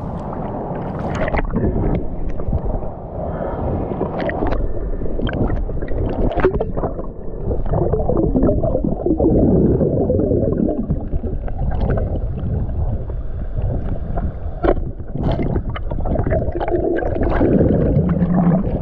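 Muffled water sloshing and bubbling around a camera in the water, with scattered sharp knocks and clicks.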